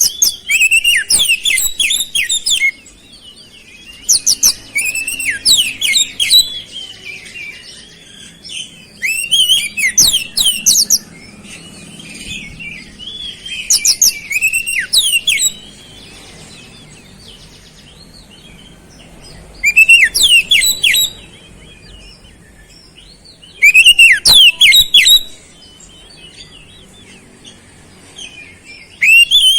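Oriental magpie-robin (kacer) singing in loud bursts of rapid, high, sweeping notes, each phrase one to three seconds long and repeated every four to five seconds. The song is filled in with flowerpecker-style calls.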